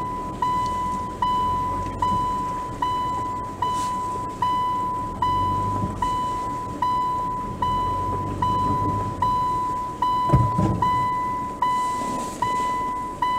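Car's in-cabin reverse-gear warning beeper sounding a single-pitched beep about every 0.8 seconds, each sharp at the start and fading, while the car backs slowly with its engine rumbling low underneath. A short low thump comes a little past ten seconds in.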